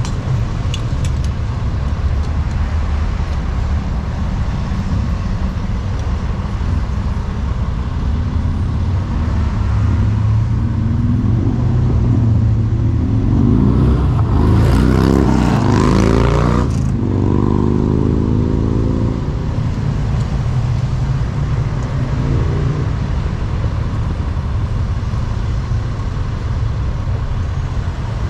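Steady roadway traffic rumble from passing cars. About halfway through, one vehicle gets louder as it goes by, its engine note sliding in pitch, and it fades soon after.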